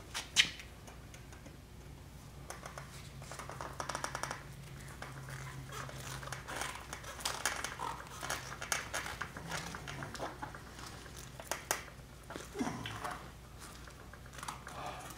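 Thin clamping wire being handled and twisted tight by hand around wooden blocks on a foam mold: scattered small clicks, scrapes and light rattling, with one sharp click about half a second in, over a low steady hum.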